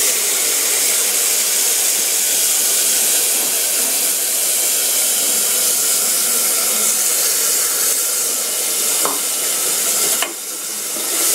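Ground onion, ginger, garlic and cumin paste sizzling hard in hot oil in a pressure cooker: a loud, steady hiss as the water in the wet paste boils off. The hiss drops for a moment about ten seconds in, then picks up again.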